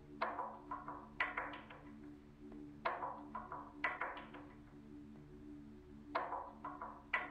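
Background music: sharp percussive hits that ring and fade, over a steady low drone.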